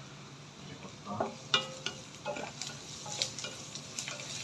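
Onion frying in a hot tadka of oil and spices in a kadhai, with light sizzling. A spoon scrapes and clinks against the pan from about a second in as the onion is stirred.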